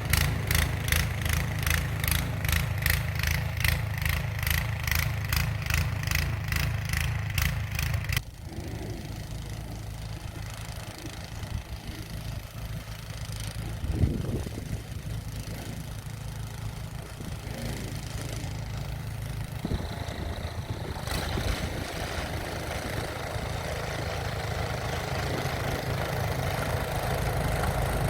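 Gas-powered snow blower engine running, with a steady low hum. The sound drops abruptly about eight seconds in, gives a single knock a few seconds later, and grows steadily louder near the end.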